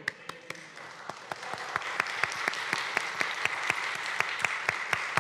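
A congregation applauding: a few scattered claps at first, growing within a second or two into steady applause from many people.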